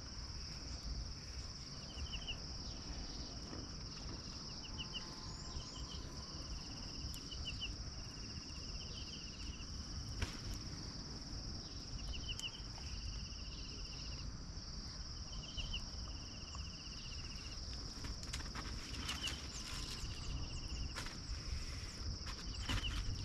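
Forest insects: a steady high-pitched drone with short chirping trills repeating every second or two, over a low rumble, with scattered clicks and rustles growing near the end.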